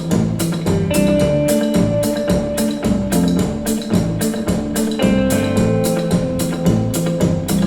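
Music with a steady drum beat and held instrument notes, played back as an audio test of a Grundig Minerva Mini-Box MB 5030 hi-fi system.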